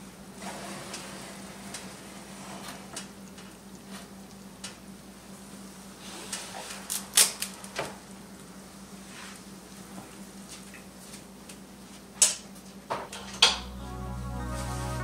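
Disposable aluminium foil roasting pan scraping and crinkling as it is slid off a metal oven rack, with scattered sharp metal clanks, the loudest about seven seconds in and two more near the end. Background music fades in over the last second or so.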